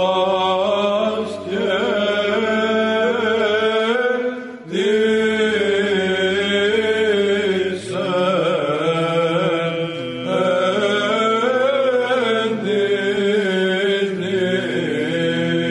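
Byzantine chant: low voices sing a winding melody over a steady held drone, in long phrases with short breaks between them.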